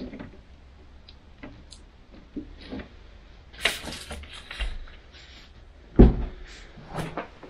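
Scattered clicks, knocks and rustles of things being handled, with one loud low thump about six seconds in and a couple more knocks after it.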